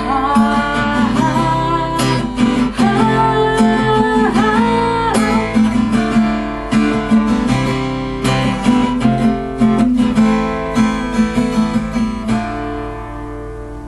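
Acoustic guitar strumming the closing bars of a song. The strumming stops about twelve seconds in, and the last chord rings out and fades.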